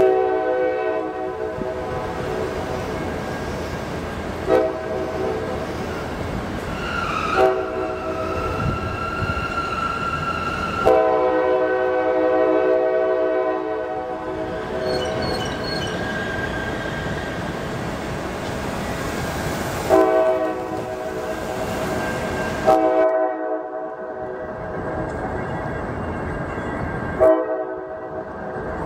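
CSX diesel freight locomotive's air horn sounding a series of long and short blasts, about seven in all, over the steady rumble of the train on street-running track. Between two of the blasts, a high steady tone sounds for a few seconds.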